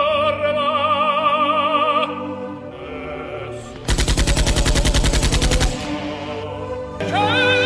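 Operatic singing with a wide vibrato over music breaks off about two seconds in. A quick burst of machine-gun fire follows, about ten shots a second for nearly two seconds, and the operatic voice comes back in near the end.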